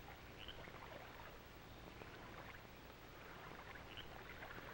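Near silence: faint steady hiss and low hum of an old film soundtrack.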